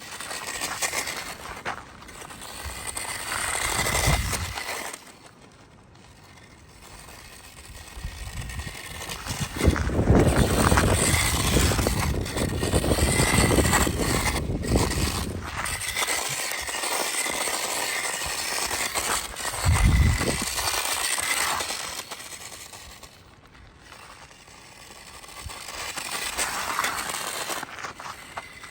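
Small 1/24-scale RC truck driving on a gravel road: a high electric-motor whine that comes and goes, with tyres crunching and scraping over loose stones. Gusts of wind rumble on the microphone at times, loudest in the middle.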